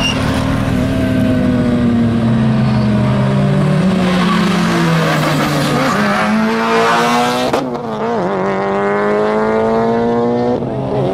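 Suzuki Hayabusa's 1340 cc inline-four engine accelerating hard, its pitch climbing steeply. It shifts up twice, about 7.5 and 10.5 seconds in, each shift a short sharp crack followed by the revs dropping and climbing again.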